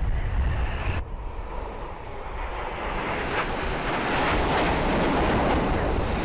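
Formation of Alpha Jet aircraft flying past, their twin turbofan engines making a jet noise that swells from about two seconds in and then holds loud and steady.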